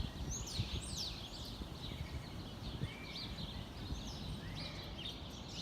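Small songbirds at a backyard feeder chirping and calling: many quick high chirps and short sweeping notes, with a few lower arched whistles. A steady low background rumble runs underneath.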